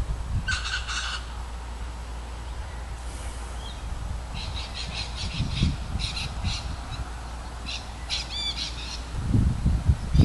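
Wild birds calling in several short bursts of rapid, high, repeated notes, some with a warbling rise and fall in pitch.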